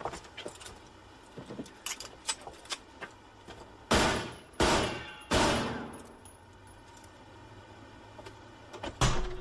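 Three pistol shots about two-thirds of a second apart, each ringing out and fading slowly, with light clicks and rattles before them and one more short loud bang near the end.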